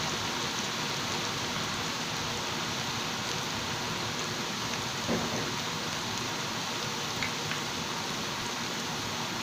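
Batter-coated shredded green papaya deep-frying in oil, a steady sizzle, with a brief louder bump about halfway through.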